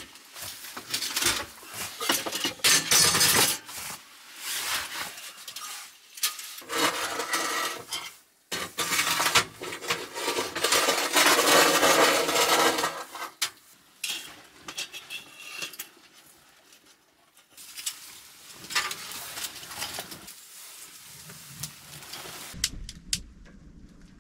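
Metal camping gear around a small wood stove being handled: irregular clattering, knocking and scraping of metal on metal, with a longer ringing scrape in the middle.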